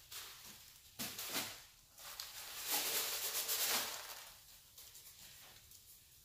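A cloth bag of feeder worms being emptied into a plastic tub: the bag and crumpled newspaper rustle, and bran bedding spills into the tub. The sound comes in three rustling bursts, the loudest about three seconds in, then fades.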